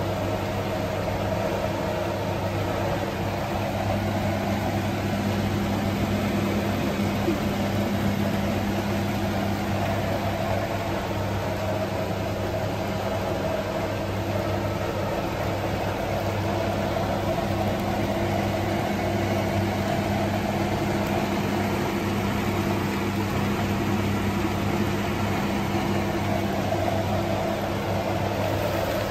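Induction hob running with a steady low hum and fan noise, under the hiss of a covered pan of greens and shrimp cooking.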